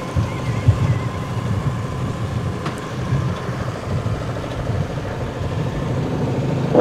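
Small four-cylinder car engine idling under the open bonnet, a steady low hum, with a single light click partway through.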